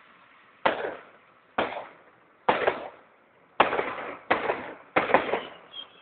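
Fireworks going off: six sharp bangs of bursting shells, about one a second, each trailing off in a short echo, the last three coming closer together.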